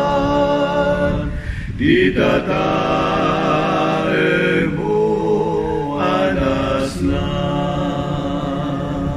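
One man's voice layered into four-part a cappella harmony, singing an Ilocano Christian hymn in long held notes with short breaths between phrases.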